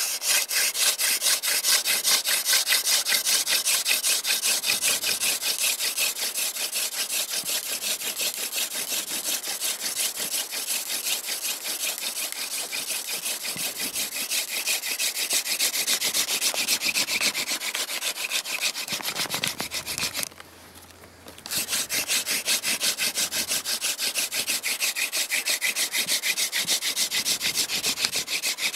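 Hand drill for friction fire: a yucca spindle twirled back and forth between the palms, grinding into an eastern white cedar hearth board in a dense, fast, rhythmic scraping. It stops briefly about twenty seconds in, then starts again.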